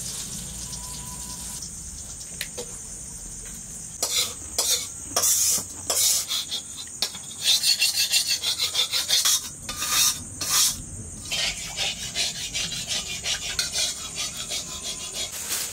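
Hands stuffing cooked chicken pieces into hollowed pointed gourds (potol): quick, irregular rubbing and rasping noises that start about four seconds in and are busiest in the middle.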